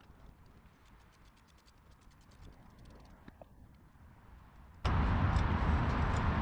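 Faint, light scattered clicks of small metal mechanisms, then almost five seconds in a loud, steady rushing hum cuts in abruptly.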